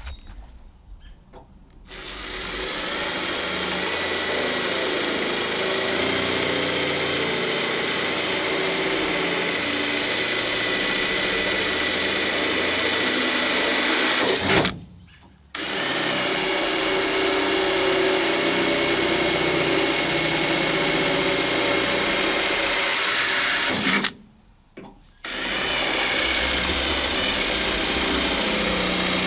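A 24-volt cordless drill boring through the truck's body panel with a larger bit, running steadily under load. It spins up about two seconds in, stops briefly about halfway and again near the end, and starts up again each time.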